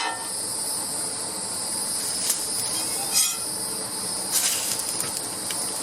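Steady high-pitched chorus of insects such as crickets, with a few brief scrapes about two, three and four and a half seconds in.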